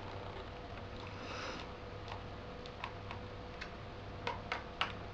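Small irregular clicks and taps of a Phillips screwdriver and screws being worked into the metal plate of a laptop hard drive, the sharpest few coming close together near the end, over a steady low hum.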